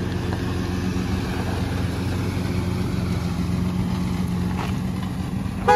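1999 GMC Safari van's 4.3-litre V6 engine running steadily, with a short beep of the van's horn right at the end.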